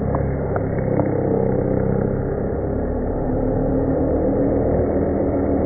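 Die grinder with a rotary carving bit cutting into bougainvillea trunk wood, slowed down so the grinder's whine becomes a low, steady drone. There are a few sharp clicks in the first second.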